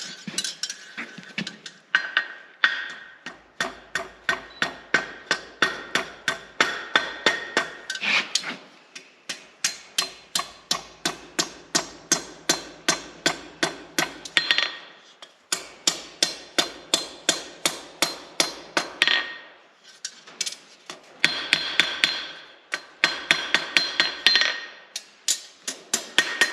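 Blacksmith's rounding hammer striking hot 1/4-inch steel rod on an anvil in a steady rhythm of about three blows a second, each with a short metallic ring, pausing briefly three times. This is forging the end of the rod for a poultry hook.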